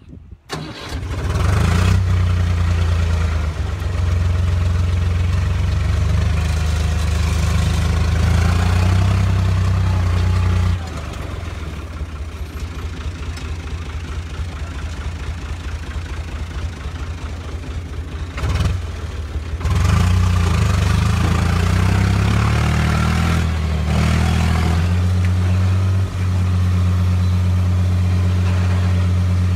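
Orange farm tractor's diesel engine starting up about half a second in, then running loud and steady as the tractor drives over stony ground. It drops to a lower, quieter running note about 11 seconds in and picks up again near 20 seconds.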